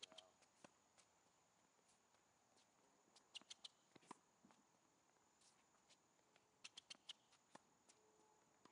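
Faint, sharp knocks of a tennis ball being fed, struck with a racket and bouncing on a hard court, mixed with footsteps, coming in little clusters with gaps between.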